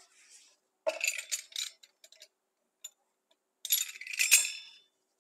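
Thin dry sheets of baklava phyllo dough rustling and crackling like paper as they are handled and stacked on a wooden board, in two short bursts about a second in and about four seconds in. The second burst ends with a sharp knock.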